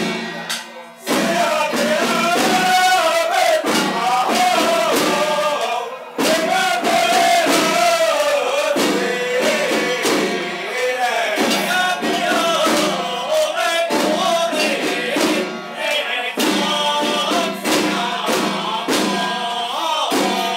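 A xiaofa ritual troupe chanting incantations in unison, men's voices in long held phrases, with strikes on hand-held ritual drums. The chant breaks off briefly about six seconds in, then resumes.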